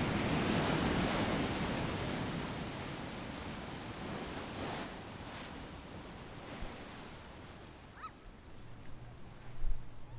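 Ocean surf washing ashore, fading out steadily over several seconds into a quiet room hum. About eight seconds in there is a brief squeak, and near the end a few soft knocks.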